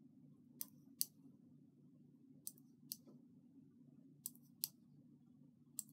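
Faint, sharp metallic clicks, mostly in pairs about every one and a half seconds, from a knitting-machine latch tool as it latches dropped stitches back up the work one row at a time. A low steady hum sits underneath.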